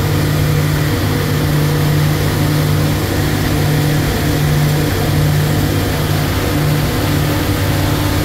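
Boat engine running steadily at cruising speed, heard on board as a low, even drone under a constant rushing noise of wind and water.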